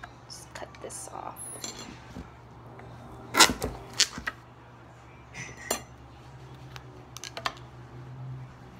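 Clear plastic honeycomb container and lid clicking and clinking against a small glass dish as they are handled, with a run of sharp knocks about three and a half to four seconds in and a few lighter clicks after.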